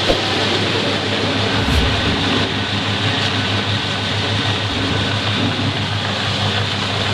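Belt-driven electric peanut sheller running steadily while shelling peanuts: a constant motor hum under a dense, even rattling noise.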